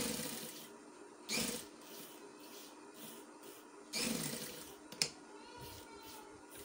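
Sewing machine stitching in three short bursts as the end of the tie is backstitched to secure it, with a sharp click about five seconds in.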